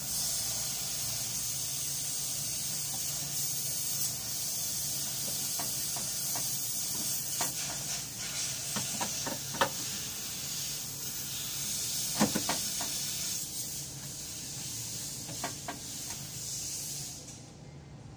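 A steady hiss with a low hum beneath it and a few short knocks and clicks, the hiss cutting off suddenly near the end.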